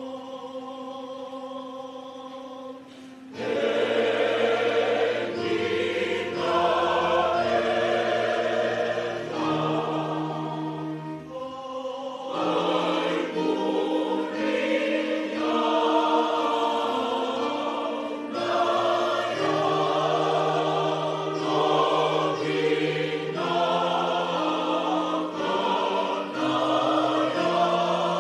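Church choir singing a Fijian hymn in several parts, holding sustained chords with a low bass line under higher voices. The first three seconds or so are soft, then the full choir comes in loudly.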